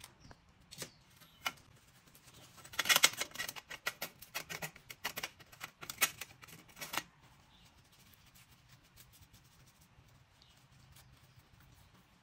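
Corroded metal phone parts and tweezers clicking and scraping against a stainless steel tray during disassembly. There are a few single clicks, then a dense run of sharp clicks for about four seconds, then only faint taps.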